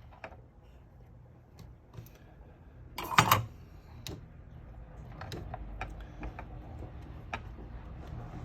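Scattered light clicks and taps of small tools and parts being handled on a workbench during a small-electronics repair, with one louder, brief clatter about three seconds in.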